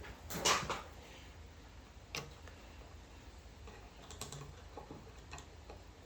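Small metal parts of a replacement door lock being worked by hand: a scrape about half a second in, then scattered light clicks as the spring-loaded clip is pressed and worked into place.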